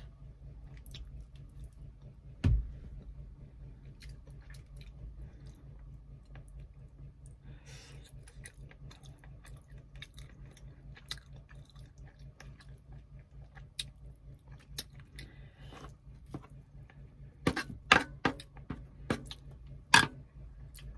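Close-up chewing of soft stewed tilapia and rice, with scattered small mouth and utensil clicks over a low steady hum. There is a single thump about two and a half seconds in, and a burst of sharp, louder clicks near the end.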